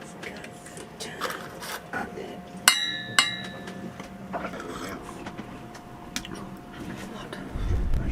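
Two sharp ringing clinks about half a second apart, like glass or metal being struck, amid small knocks. Low rumbling wind noise rises just before the end.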